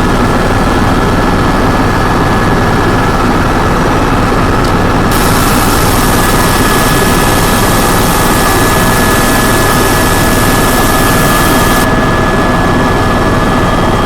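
Helicopter running: loud, steady engine and rotor noise with a few constant whining tones over it.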